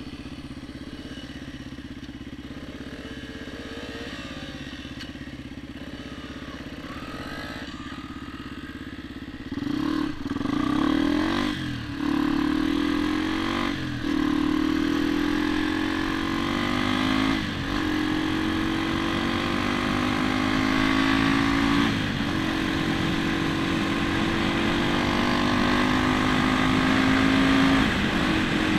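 Honda XR dirt bike's single-cylinder four-stroke engine ticking over for about nine seconds, then revving up as the bike pulls away hard, the engine note climbing and dropping back at each of several upshifts as it gathers speed.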